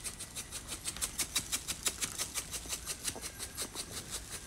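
A shaker jar of diamond dust glitter shaken rapidly and steadily, the fine glitter rattling inside it in faint, even strokes about six or seven times a second.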